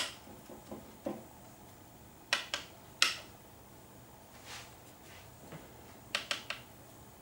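Handling sounds of a card mat on a painting: a few sharp clicks and taps, the loudest about three seconds in, and a quick run of three or four near the end, with soft rubbing between.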